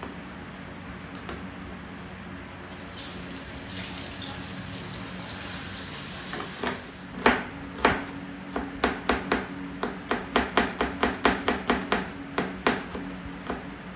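Kitchen work sounds: a hiss for a few seconds, then a run of sharp knocks on a hard surface, about three a second, that carries on almost to the end.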